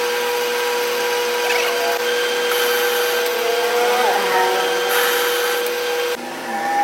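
A power tool's motor running with a steady whine and grinding noise, which changes abruptly about six seconds in.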